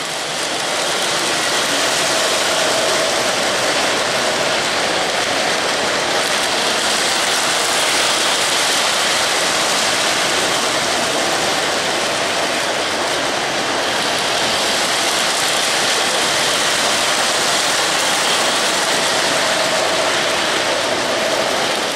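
Several O-gauge three-rail model trains running on tubular metal track: a steady rolling clatter of metal wheels on rails, with a faint steady motor whine.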